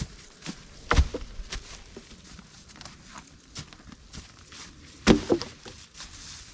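Footsteps in snow with scattered knocks and crackles, and two louder thumps, one about a second in and one about five seconds in.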